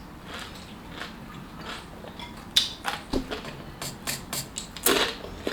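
Close mouth sounds of eating a chamoy pickle: scattered crisp crunches and wet smacks, coming more often in the second half.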